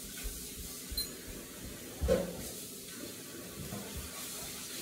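Quiet room tone with a steady faint hiss and a few soft thumps of footsteps on a hard floor, the loudest about two seconds in.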